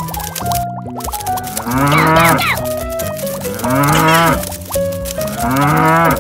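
Cattle mooing: three long moos, each rising and then falling in pitch, over upbeat children's background music.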